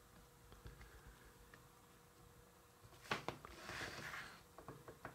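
Faint taps of a food-colouring marker tip dabbing dots onto a frosted cookie, otherwise very quiet. Two sharper taps come a little after three seconds in, followed by a brief soft hiss.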